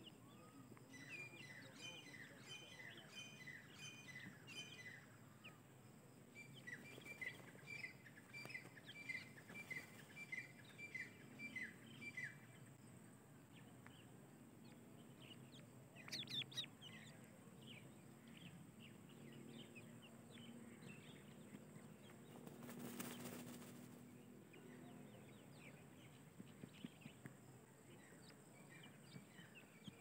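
Faint, high peeping of grey francolin chicks. A string of short falling peeps comes first, then an evenly spaced run of about two peeps a second. A louder burst of calls comes about 16 seconds in, and scattered peeps follow. A short whoosh of noise rises and fades about 23 seconds in.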